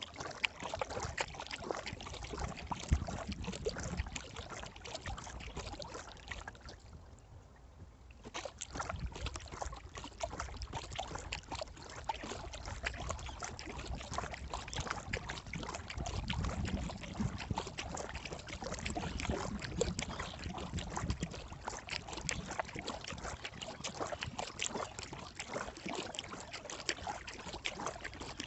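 Kayak paddle dipping and dripping, with water splashing and trickling close by in a dense, continuous patter and a low rumble underneath. The splashing eases briefly about seven seconds in.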